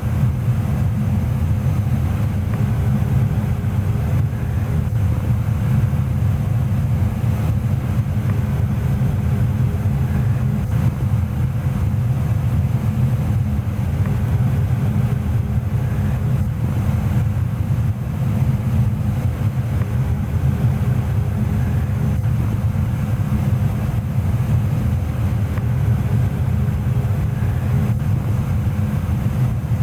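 Goodman GMNT080-4 gas furnace running steadily, a constant low rumble of its burners and blower air with a faint steady hum above it.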